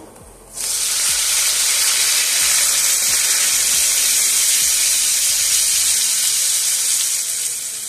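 Corn and its canning liquid hitting a hot, oiled frying pan: a loud sizzle that starts suddenly about half a second in, holds steady, and eases slightly near the end.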